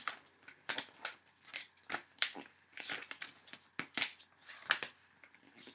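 Hands rummaging and handling small items and papers: a string of short, irregular rustles and taps, about two a second.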